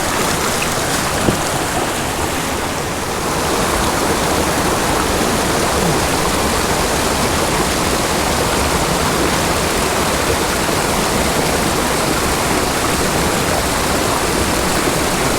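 Small mountain creek's water running steadily over rocks, a close, even rush that gets a little louder about three seconds in.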